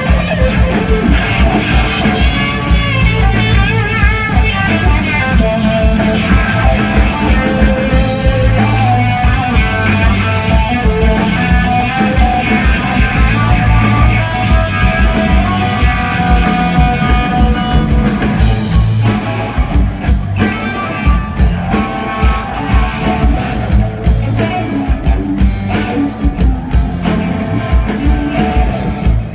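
Live rock band playing: electric guitar with bent, wavering notes over bass and a steady drum beat.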